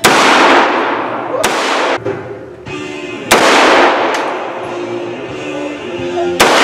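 AR-15-style rifle fired four times at uneven intervals, each shot followed by a long fading echo, the last shot near the end. Background music plays underneath.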